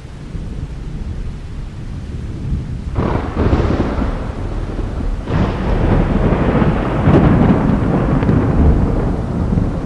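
Thunder: a low rumble swells suddenly into a sharp crack about three seconds in, a second crack follows about two seconds later, and the thunder rolls on loudly after it.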